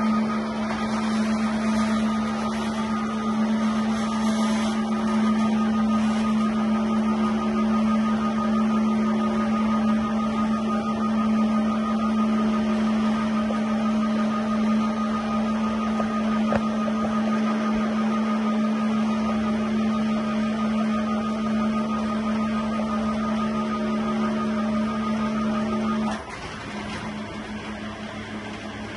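GEDA Lift 250 construction ladder hoist running, its drive unit giving a loud, steady hum as the platform climbs the ladder rail. A few seconds before the end the hum drops noticeably in level and carries on more quietly.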